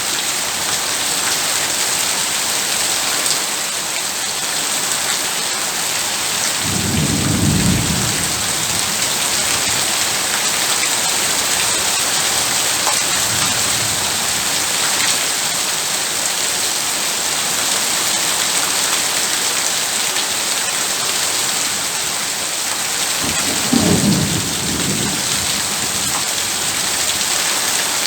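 Heavy rain falling steadily, with a low rumble of thunder about seven seconds in and another, shorter and a little louder, near the end.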